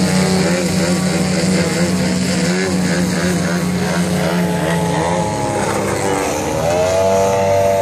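Engine of a giant-scale RC Carbon Cub running in flight. Its pitch wavers and ripples as the plane maneuvers, and the low engine note breaks off about five seconds in, as the airframe comes apart in the air. A higher steady tone rises near the end and holds.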